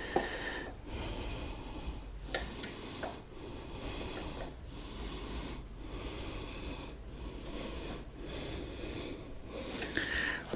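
A man breathing hard through his nose in quick, even breaths, about one a second, straining with exertion as he hand-tightens a part.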